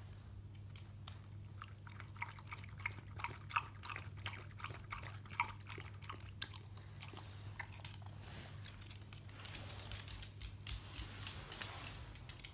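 Dog chewing and crunching something hard, in quick irregular crunches that are densest for the first half, over a steady low electrical hum.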